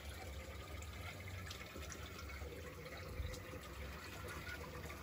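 Aquabee UP 12.000 electronic V24 brushless DC centrifugal return pump running at full power, about 130 W, against roughly 3 m of head, with water rushing steadily through its PVC pipework. A faint tap about three seconds in.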